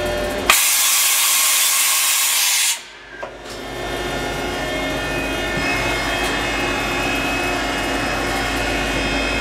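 Wasino WMC3 vertical machining center working its automatic tool changer: a clack, then a loud hiss that cuts off sharply after about two seconds. After a brief lull, a steady machine hum with several whining tones sets in as the machine runs on.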